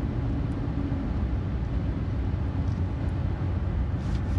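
Steady low rumble of a 2009 GMC Sierra's 5.3-litre V8 running, heard from inside the cab.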